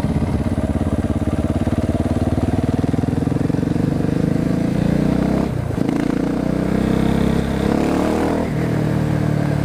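Husqvarna 701 Supermoto's big single-cylinder engine pulling hard under acceleration, its pitch rising, with a quick upshift about halfway through and another near the end.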